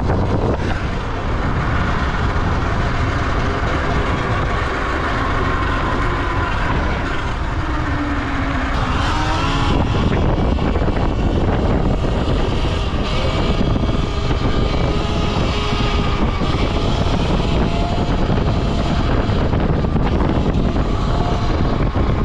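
Falcon Pro 79 electric dirt bike being ridden: a steady rush of wind and road noise with the motor's whine gliding up and down as the speed changes.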